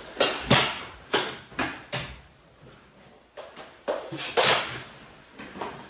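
Irregular knocks and clacks of a mini-stick hockey scrum: short plastic sticks, the ball and bodies banging against the floor, wall and net. The knocks come quickly at first, pause briefly in the middle, then return in a short flurry.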